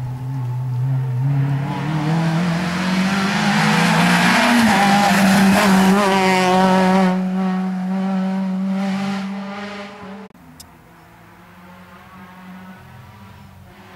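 First-generation Renault Clio rally car at full throttle, its engine note climbing over the first few seconds as it comes in and passes close by, loud with road and tyre noise. At about ten seconds the sound cuts to a much quieter, distant engine.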